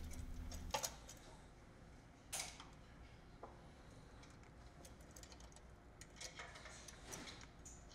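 Faint, scattered clicks and ticks of a screwdriver turning the set screws on a sewing machine's metal stitch length plate, with a short scrape about two and a half seconds in.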